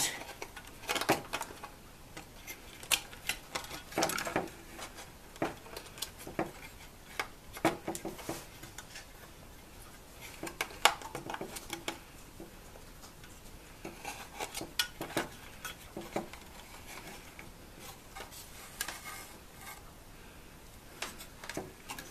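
Irregular small clicks, taps and light rattles of hands handling the wires and plastic parts inside the open housing of a filmstrip viewer.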